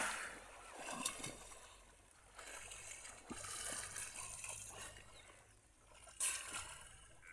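Quiet water splashing and trickling as swimmers move in a dam, with a louder splash about six seconds in.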